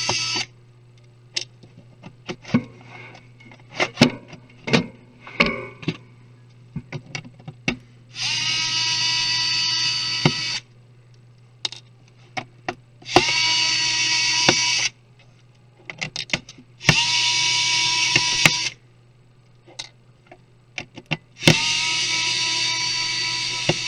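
Small electric screwdriver whining in runs of about two seconds, four times, backing out laptop screws, with sharp clicks and taps of screws and tools between the runs.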